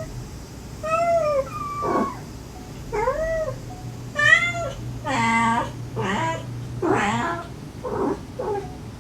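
A mother cat and her kittens meowing back and forth: about eight short meows that rise and fall in pitch, most of them high, one lower and longer a little past the middle.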